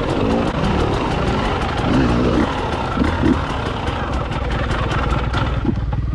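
KTM 300XC dirt bike's two-stroke single-cylinder engine running under load, revving up and down a few times, then running steadier near the end.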